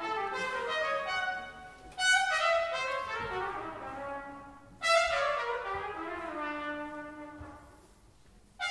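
Jazz big band brass led by trumpets, playing loud accented chords: sharp hits about two and five seconds in, each fading with the notes sliding down in pitch.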